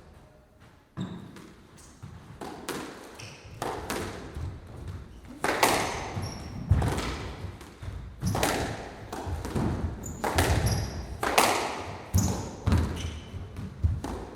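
Squash rally: the ball is struck and hits the court walls in quick, irregular succession, each sharp thud ringing on in the enclosed court, with a few short squeaks from shoes on the floor.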